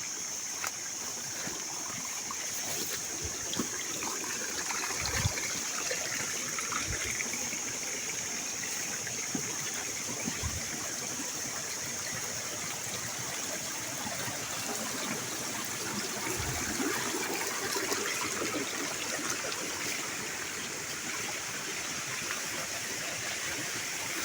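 A small forest stream running over rocks, under a steady high-pitched insect drone. A few dull low thumps come through at intervals.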